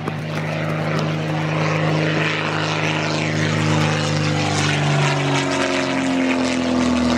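Zlin Z-142 light aircraft flying overhead, its inverted six-cylinder Walter M337 engine and propeller running steadily; the engine note falls in pitch about five seconds in.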